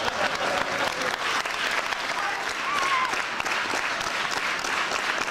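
Crowd applauding: dense, steady clapping from many hands, with a voice briefly calling out about three seconds in.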